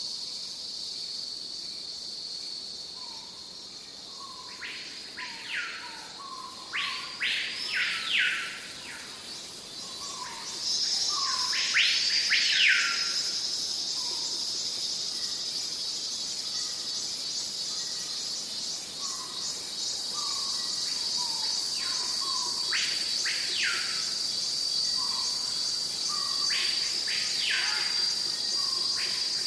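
Tropical forest ambience: a steady high-pitched insect chorus, joined about a third of the way in by a louder insect buzz. Birds call over it in groups of quick rising whistles, with scattered short low chirps.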